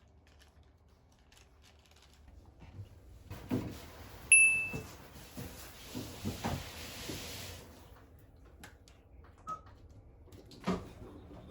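Household kitchen handling sounds: scattered knocks and clatter of things being moved, with a few seconds of rushing noise and a single short electronic appliance beep about four seconds in, the loudest sound.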